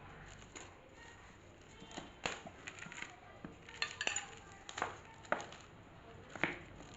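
Irregular sharp clicks and light knocks of a smartwatch and its packaging being handled during unboxing, about nine of them, starting about two seconds in.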